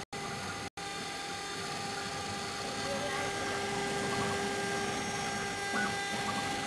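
CNC router spindle motor running with a steady whine while its bit engraves a cylindrical workpiece turned on the rotary axis. The sound drops out twice briefly near the start.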